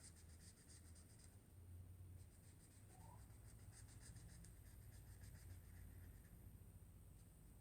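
Faint scratching of colouring on paper: quick back-and-forth strokes in short runs with brief pauses between them.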